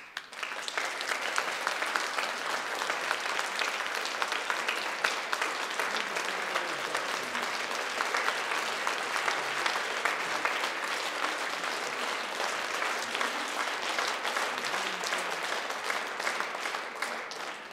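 Concert audience applauding, greeting the conductor's entrance: a dense, steady clatter of many hands that starts suddenly and dies away near the end.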